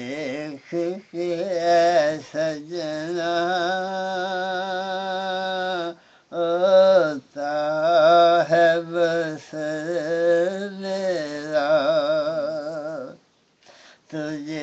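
A single man's voice singing a devotional song without accompaniment, in long, wavering held notes. The singing breaks off briefly about six seconds in and again near the end.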